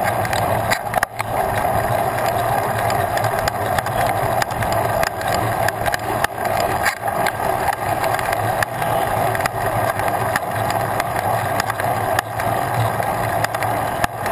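Mountain bike rolling along a paved road: steady rolling noise from the tyres, with frequent small rattles and clicks from the bike.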